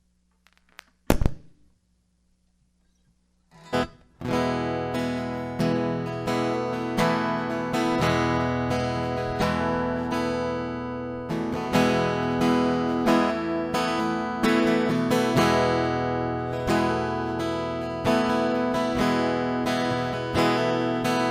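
A single sharp knock about a second in, then near quiet; from about four seconds an acoustic guitar is strummed in a steady rhythm, playing the instrumental introduction to a song.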